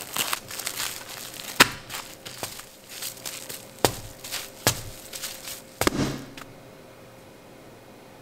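Plastic cling wrap crinkling as hands press and shape a wrapped block of scone dough, with several sharp knocks as the block is tapped square against a granite countertop. The handling stops about two-thirds of the way through.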